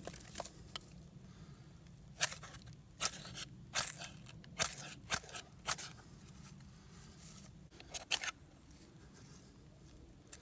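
Fire steel (ferro rod) scraped with the spine of a knife: about eight short, sharp scrapes in quick strokes, bunched in the middle with two more near the end. The strikes throw few sparks because the knife spine has no good edge on it.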